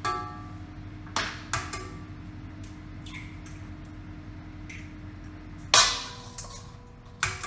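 Eggs tapped and cracked against the rim of a stand-mixer bowl: a series of sharp knocks and clinks, some leaving the bowl briefly ringing, the loudest about three-quarters of the way through.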